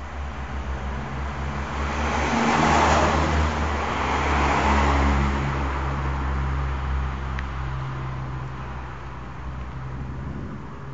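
Thunder following a lightning flash: a rumble that builds about two seconds in, holds for a few seconds and rolls away slowly.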